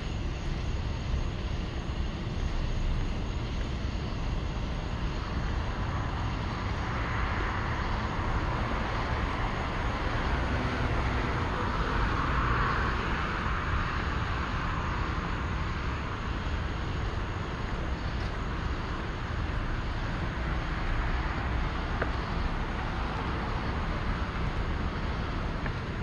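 Outdoor night ambience: a steady low rumble, with a hissing buzz that starts about seven seconds in, swells, and fades away some ten seconds later.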